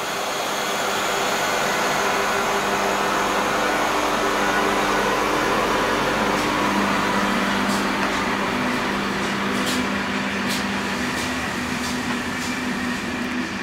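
CFL Series 2000 electric multiple unit running, a steady rumble with a hum of several steady tones that shift in pitch a few times. From about halfway on, a few sharp clicks.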